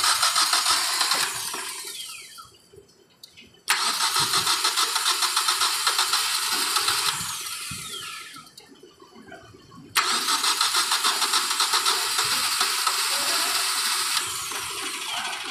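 A 2012 Hyundai Accent's starter cranks the petrol engine in three long pulsing bursts, and the starter whine winds down after each one. The engine fires on the last attempt after a no-crank fault. It runs unevenly and misfires, which is put down to long standing and stale petrol.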